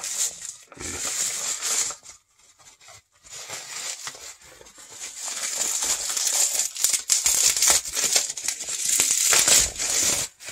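Bubble-wrap packaging crinkling and rustling as hands work a small cardboard box out of it. The crinkling drops away briefly about two seconds in, then returns and runs dense.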